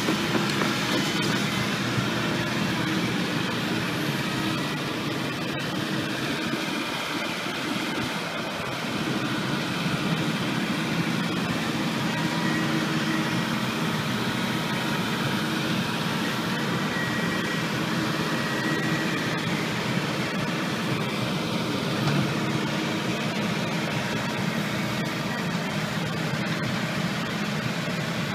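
Diesel engine of a tracked excavator running steadily as it moves and works over dirt.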